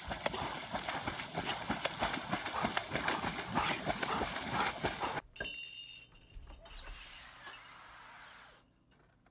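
A dog leaping and bounding through pond water, throwing up repeated splashes in quick succession. The splashing cuts off suddenly about five seconds in, leaving only faint sound.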